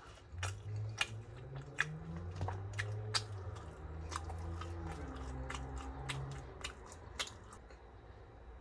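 Close-miked chewing of French fries, with sharp wet mouth clicks and crunches at irregular intervals that stop about a second before the end. A low closed-mouth hum rises and falls under the chewing for much of the time.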